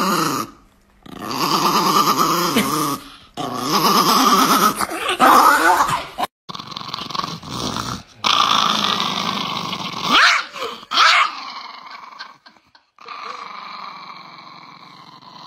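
Small dogs (chihuahuas) growling in long, wavering stretches broken by brief pauses, quieter in the last few seconds.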